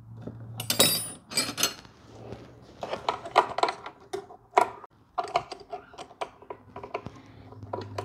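Irregular metallic clicks and clinks of hand tools and parts being handled inside a DeWalt DW735 thickness planer while its impeller is being fitted back in.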